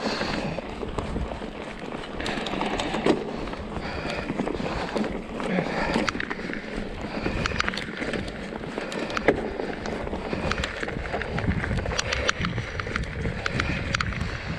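Mountain bike riding over a rough dirt and stone trail: tyres on loose ground, with frequent sharp clicks and rattles from the bike and a steady low rumble.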